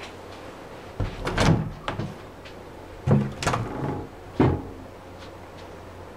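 A built-in wardrobe's double doors being pulled open: a run of knocks and clatter about a second in, then more clatter and a sharp knock between about three and four and a half seconds in.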